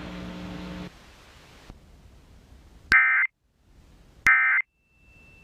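Two short bursts of Emergency Alert System end-of-message data tones, the warbling digital screech that closes an EAS message, about a second and a half apart. A low steady hum fills the first second.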